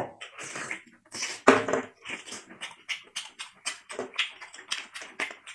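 Wet chewing and lip-smacking of a person eating abalone: irregular sticky clicks and slurps, several a second, with a louder slurp about one and a half seconds in.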